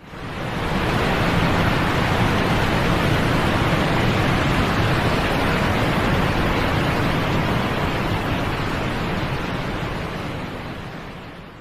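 A steady, even rushing noise with no tone or rhythm in it, fading in over the first second and fading out just before the end.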